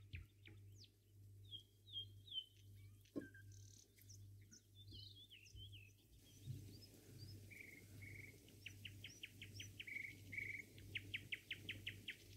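Faint birdsong: scattered chirps and whistles, then quick runs of repeated notes, about five or six a second, in the second half. A steady low hum runs underneath.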